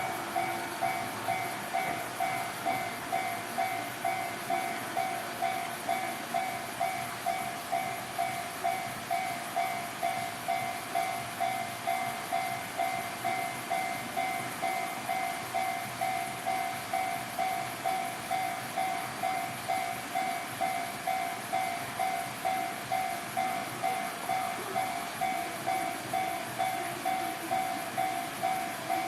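Japanese railway level-crossing warning signal ringing: an electronic two-tone ding repeating evenly, about one and a half times a second, signalling that a train is approaching.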